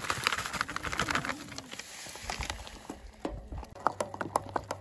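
A utensil clacking and scraping against a stainless steel pot while mashed potatoes are stirred: a run of irregular clicks and knocks, coming thicker near the end.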